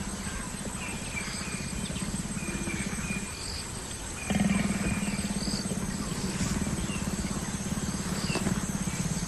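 Courting leopards giving a low, continuous, rasping growl, louder from about four seconds in.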